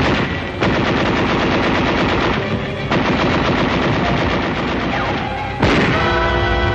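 Rapid machine-gun fire in long runs of shots, a battle soundtrack from a 1940s war film. Near the end a sudden loud blast and orchestral music take over.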